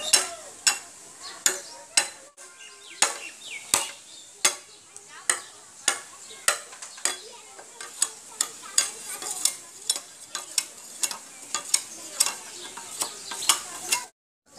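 A broad curved chopping blade (dao) striking a short piece of green bamboo in steady, evenly spaced chops, about one and a half sharp knocks a second. The chopping cuts off abruptly near the end.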